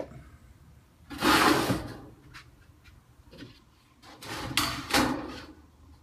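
Galvanized sheet-metal duct being dragged and turned on a concrete floor: two scraping slides of about a second each, one near the start and one past the middle, with a few light taps between them.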